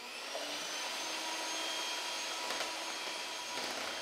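Hand-held electric mixer running steadily, its beaters whipping chantilly cream in a plastic bowl.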